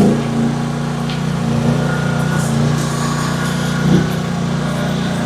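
AGT H12 mini excavator's engine running steadily, with a brief knock about four seconds in.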